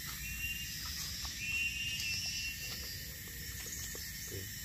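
Jungle insects droning steadily at a high pitch. A clearer call rises in pitch and fades two or three times over the drone.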